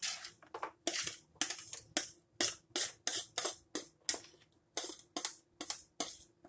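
Chopped bell peppers and onions being scraped off a plastic cutting board into a foil pan of ground beef: a quick run of short scraping strokes, about three a second.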